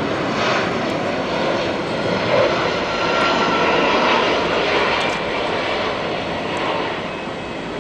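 Jet aircraft engines running, a broad steady noise that swells to its loudest about three to five seconds in and eases off near the end.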